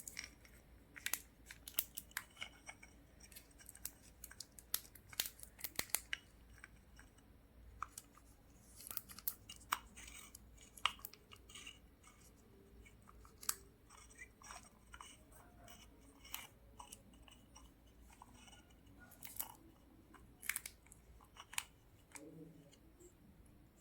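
Faint, irregular small clicks and scrapes of a soldering iron's parts being handled as its cap is fitted and screwed on.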